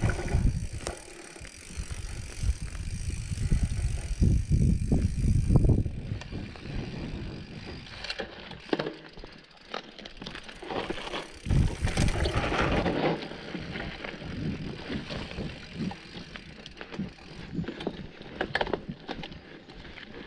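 A mountain bike ridden over a rough dirt trail, with irregular knocks and clatter from the bike over the ground. A low rumble is heaviest in the first six seconds and again around twelve seconds in.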